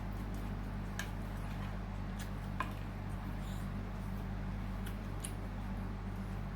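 Small wet clicks and mouth noises of someone eating noodle soup, scattered over a steady low electrical hum.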